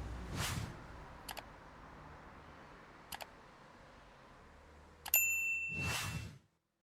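A single bright metallic ding, starting with a click about five seconds in and ringing for under a second, then a short whooshing swell. A couple of faint small clicks come before it.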